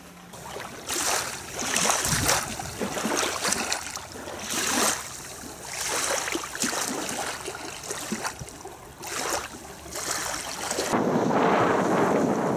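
Rushing wind and water noise in irregular surges every second or two, turning to a steadier rush near the end.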